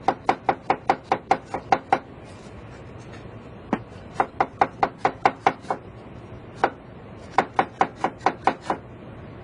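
Kitchen knife shredding cabbage on a cutting board: three quick runs of chopping strokes, about five a second, with short pauses and a single stroke between them.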